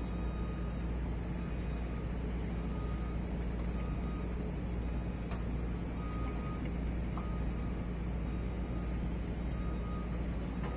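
An engine idling: a steady low drone, with a few faint clicks about midway.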